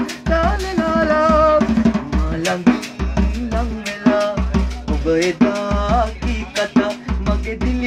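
A man singing a Sinhala song over a steady drum beat, with deep bass-drum thumps and sharp snare-like strikes.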